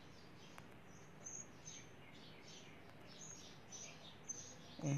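Small birds chirping repeatedly, faint, short high chirps that each drop in pitch, over a low steady hiss. A single faint click comes about half a second in.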